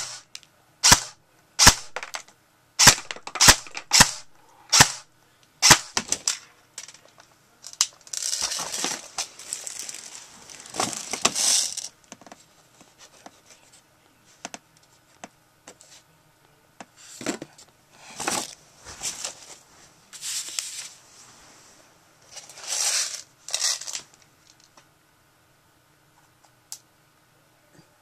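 Airsoft gun firing: a quick run of about nine sharp cracks, then longer noisy stretches lasting a second or more, with a few more scattered shots later on.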